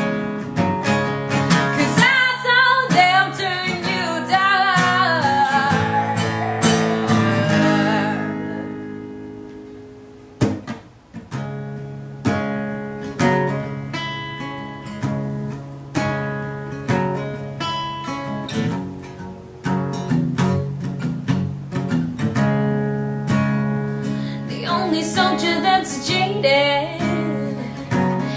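A woman singing over an acoustic guitar. Her voice drops out about eight seconds in, leaving the guitar playing alone with a brief pause near ten seconds, and she comes back in near the end.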